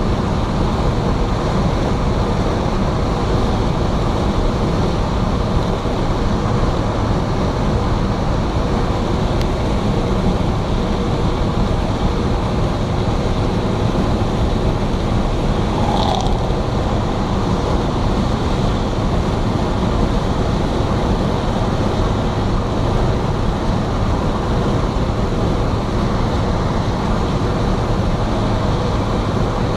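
Steady, dense hiss of heavy rain falling.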